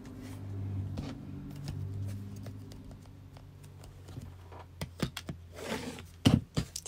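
A sewn strap strip being cut into short pieces and handled: a few sharp clicks and snips in the second half, over a low steady hum.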